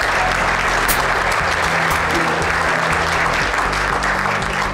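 Audience applauding steadily, with background music underneath.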